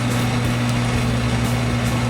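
Atlas metal lathe running under its electric motor, a steady hum with faint irregular ticks over it.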